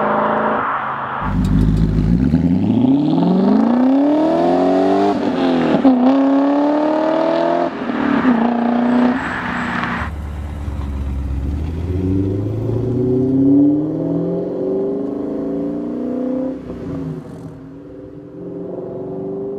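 BMW E39 M5's V8 accelerating hard, its pitch climbing steeply and dropping at two upshifts. After a sudden cut, a second run follows at lower revs and lower volume.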